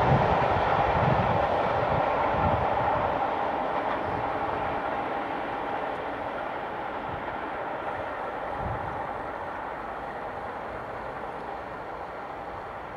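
A heritage passenger train rolling away along the track: the rumble of its wheels on the rails fades steadily, with a few low wheel knocks in the first few seconds.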